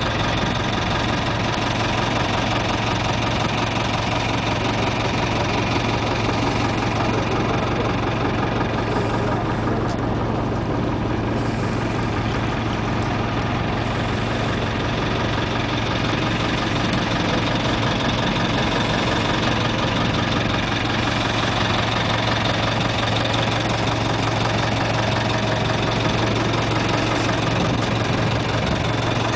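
A fishing boat's engine idling steadily alongside, a constant low hum.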